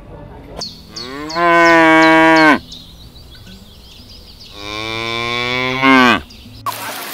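Cattle mooing: two long moos of about a second and a half each, a few seconds apart.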